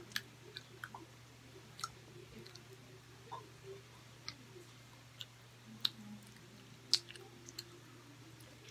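Faint close-up chewing of grilled skewered meat: scattered wet mouth clicks and smacks, the sharpest two about six and seven seconds in, over a steady low hum.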